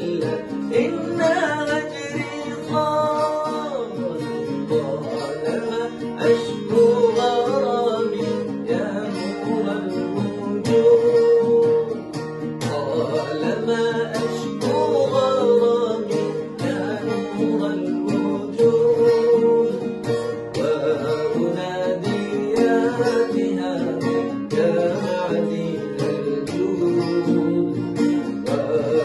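A bağlama (long-necked Turkish saz) plays a wavering, ornamented melody over a strummed acoustic guitar.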